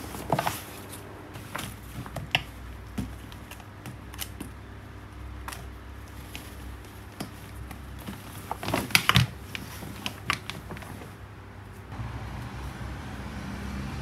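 A fabric backpack being handled: scattered rustles and light clicks, with a quick cluster of sharper clicks and knocks about nine seconds in, over a low steady hum. Near the end the background changes to a louder, steadier hum.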